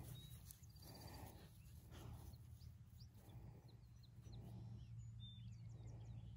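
Quiet outdoor ambience with a steady low hum, and faint bird chirps from about three seconds in.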